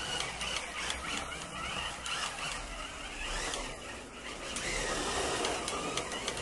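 Small electric motor of a 1/32 scale hardtop Jaguar slot car whining as it laps the track, its pitch rising and falling with the throttle. The car rattles and clicks over the plastic track as it goes.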